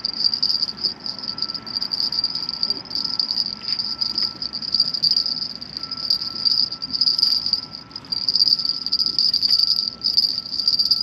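Chorus of night insects: a steady high trill that swells and fades slightly, with a fainter, lower steady tone beneath it.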